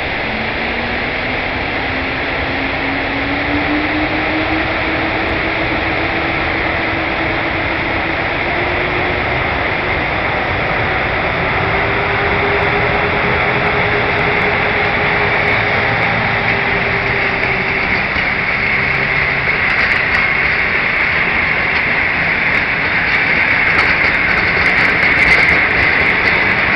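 PKP Intercity EP09 electric locomotive pulling away with an express train. A whine rises in pitch over the first ten seconds and then holds steady as the locomotive passes. The coaches follow, rolling by with a high wheel squeal and scattered clicks from the wheels near the end.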